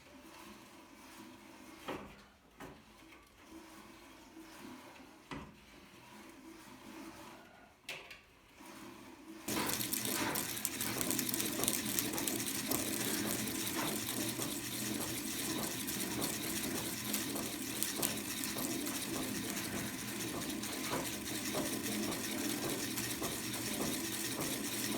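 A few light clicks and knocks, then about nine seconds in a machine starts and runs with a steady hissing whir and a low hum, spooling welding wire onto an empty reel.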